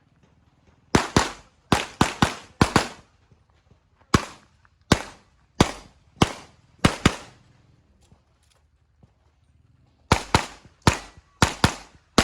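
Handgun shots fired in rapid succession: a quick string of shots, then a slower run of evenly spaced single shots, a pause of about three seconds, and another fast string near the end.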